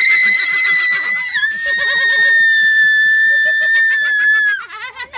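A young woman's long, high-pitched scream, held for about four and a half seconds with a slight drop in pitch about a second and a half in, in fright at a turtle on her chest. Laughter runs underneath.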